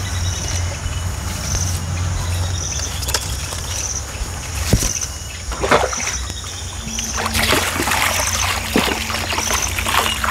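Water poured from a steel pot splashing onto cassava roots in a bowl, starting about seven seconds in. Before that come a few knocks and handling sounds over a steady low rumble, with an insect chirping at an even pace in the background.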